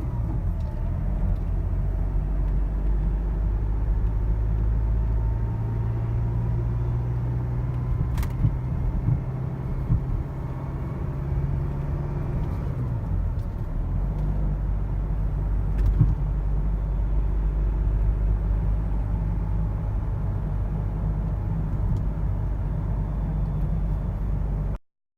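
Renault Vel Satis driving with a steady low road rumble and a few sharp knocks, the loudest about sixteen seconds in: the rear suspension knocking.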